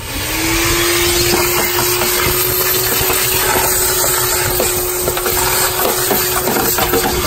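A motor starts abruptly and spins up within about half a second, then runs at one steady pitch over loud rushing noise with scattered clicks.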